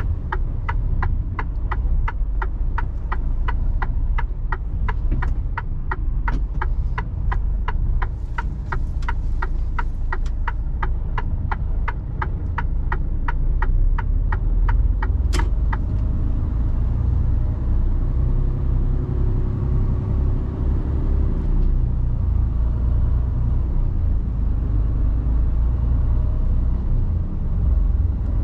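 Inside the cab of a Mercedes Actros truck, the turn indicator relay ticks steadily at a little over two ticks a second over the low rumble of the running diesel engine. About fifteen seconds in, one sharp click ends the ticking. After that only the engine drone remains, with a brief added hum near the middle of the second half.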